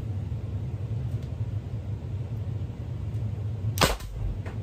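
Byrna SD CO2 launcher firing one solid .68-calibre glass-breaking round over a chronograph, about four seconds in: a single sharp pop with a brief low thud, and a fainter knock about half a second later. The shot clocks about 250 feet per second. A steady low hum runs underneath.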